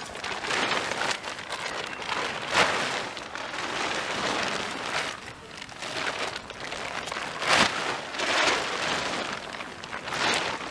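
Fabric of an Excursion 7 tent being lifted, shaken out and dragged over grass, rustling and crinkling in irregular surges, with a few sharper swishes as it is flapped.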